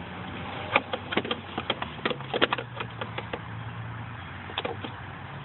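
Adjustable wrench clinking on a car battery terminal clamp nut as it is turned loose: a run of short, sharp metallic clicks over a couple of seconds, then a few more near the end, over a steady low hum.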